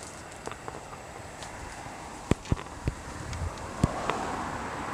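Strong wind blowing, growing stronger about three seconds in, with a few scattered sharp ticks.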